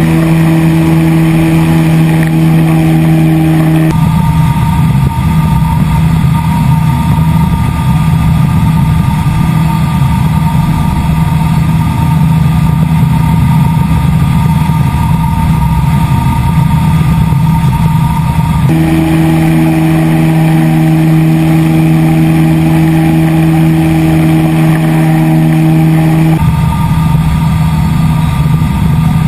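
Ultralight trike's engine and pusher propeller running steadily in cruise flight, a loud constant drone. Its tone shifts abruptly about four seconds in and twice more later.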